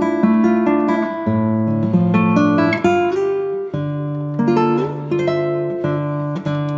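Background music: an acoustic guitar picking a melody over held lower notes.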